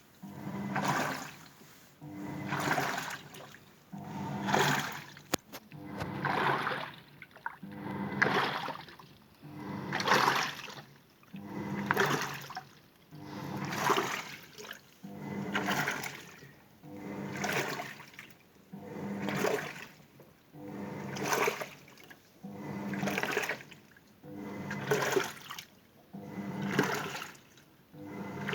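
Toshiba washing machine in its wash action: the motor hums and the water swishes in surges about every two seconds, with short pauses as the wash turns back and forth.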